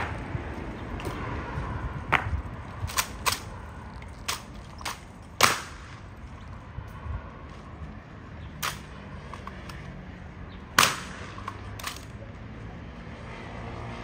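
Honour guard drill: sharp, irregularly spaced clacks of rifles being handled and struck and boots stamping, about a dozen in all, the loudest about five and a half and eleven seconds in.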